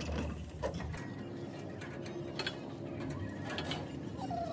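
Scattered metallic clicks and clinks of hand work on a truck chassis, with a faint steady hum behind.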